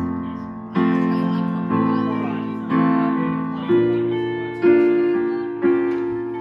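Electric keyboard playing a slow chord progression, one chord struck about every second and left to ring and fade, with low notes under each chord.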